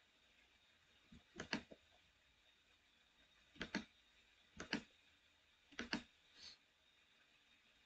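Computer mouse clicks: four sharp clicks spaced one to two seconds apart, each a quick press-and-release double tick, with a fainter click near the end.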